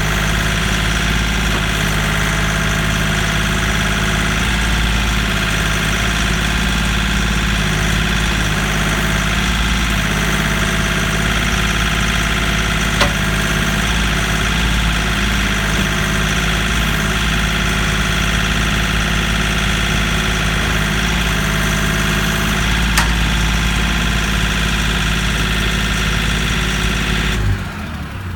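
Kioti compact tractor's diesel engine running steadily, with two sharp clicks about ten seconds apart, then shutting off near the end.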